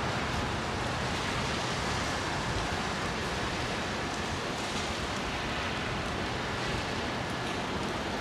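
Steady, even rushing noise of outdoor wind and wet weather, fluttering in the low end, with no distinct events.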